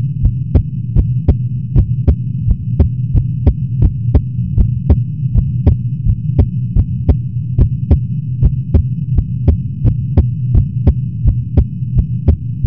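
Amplified human heartbeat: quick, regular lub-dub beats, a little fast. Under them runs the loud steady hum of an air conditioner.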